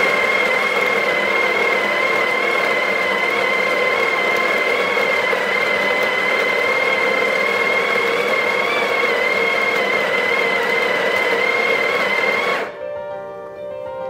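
Breville Barista Pro's built-in conical burr grinder running on its 12-second timed dose, grinding coffee beans into the portafilter with a loud, steady high whine. It stops suddenly near the end.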